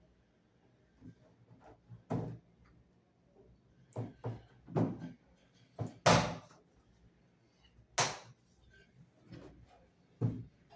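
Irregular knocks and clacks of a washing machine basket's trim piece being handled and pushed onto the drum, about ten separate strikes, the loudest about six seconds in.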